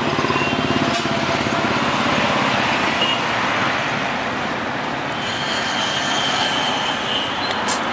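Road traffic noise: vehicle engines running and passing close by.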